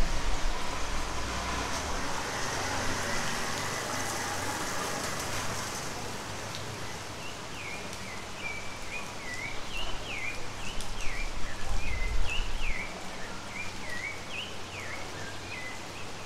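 Steady rain falling, with a bird calling from about seven seconds in: a run of short, repeated falling notes. There is a brief low rumble about twelve seconds in.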